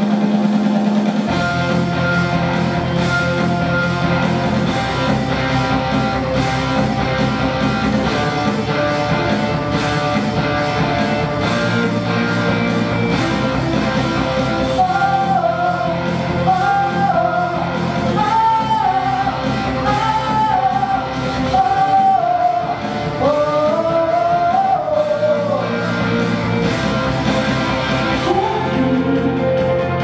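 Pop song with instrumental accompaniment; about halfway through a girl's solo singing voice comes in over it.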